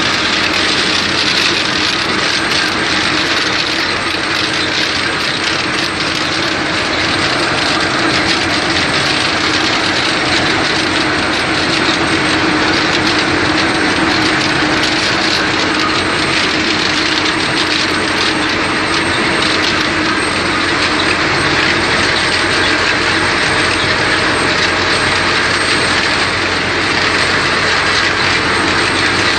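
Mechanical tomato harvester running: a steady machine hum under a dense, continuous rattle from its conveyors and shaker as the tomatoes are carried along.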